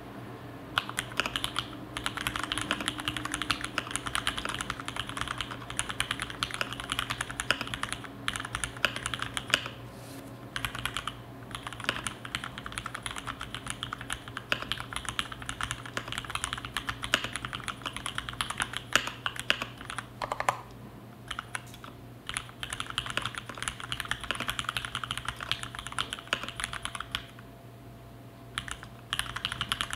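Fast typing on a DuckMini v1 mechanical keyboard with 62 g Cherry MX Black linear switches and GMK Dolch keycaps. The keystrokes come in long rapid runs, broken by short pauses about ten seconds in, about twenty seconds in and near the end.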